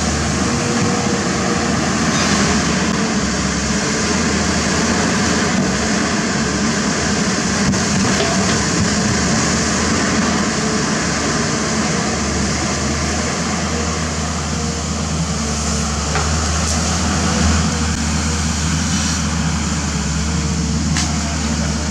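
Pindad Excava 200 excavator's Deutz BF06M2012C six-cylinder diesel engine running steadily under hydraulic load as the machine digs, with a constant low drone.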